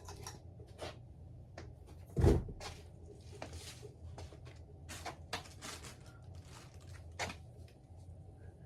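Scattered clicks and light knocks, with one loud thump about two seconds in, over a faint steady low hum.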